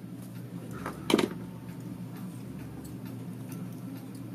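Small metal relay parts being handled and worked apart by hand: faint scattered ticks and one sharper click about a second in as the armature is freed, over a low steady hum.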